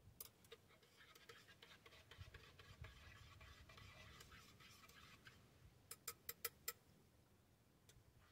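Faint rustling and scratching of hands handling a small item, followed about six seconds in by a quick run of five sharp clicks and one more click near the end.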